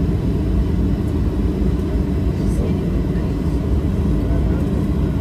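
Steady low rumble of a Boeing 737-800 jet airliner, even throughout with no rise or fall in pitch.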